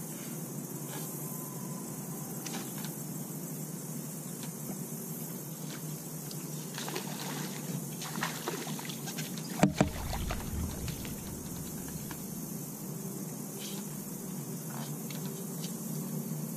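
Steady low hum of a small boat's motor under the jon boat as a small bass is fought to the boat: splashing and scattered ticks about seven to nine seconds in, then two sharp thumps close together about ten seconds in as the fish is landed.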